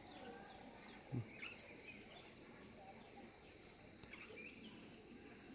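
Faint birds chirping: a few short, high, falling whistles over a quiet background with a steady faint high-pitched drone. A single soft thump about a second in.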